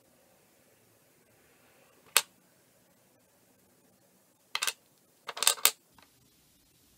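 Small polymer clay charms clicking as they are handled and set down on the tabletop among the other charms: one sharp click about two seconds in, then a few quick clusters of clicks later on.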